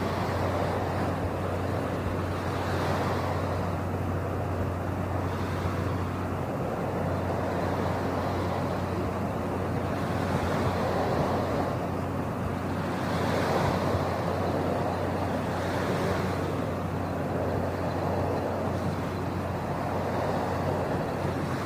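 Ocean waves washing in and out: a steady rushing surf noise that swells and eases about every three seconds, over a low steady hum.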